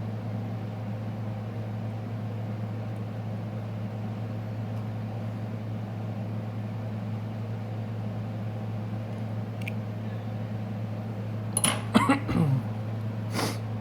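A steady low machine hum, like a running fan or motor, holds through; near the end come a few sharp clicks and knocks.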